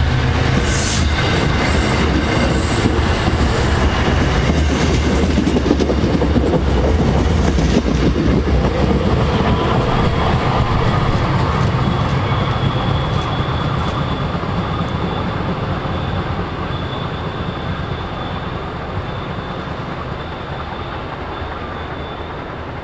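MBTA commuter rail train rolling past close by, its wheels clattering over the rails with a heavy rumble, then slowly fading as it moves away. A thin, steady high whine joins about halfway through.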